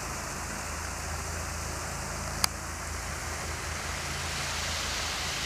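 Steady rushing of small waterfalls spilling over a rock ledge into a creek pool, with one sharp click about two and a half seconds in.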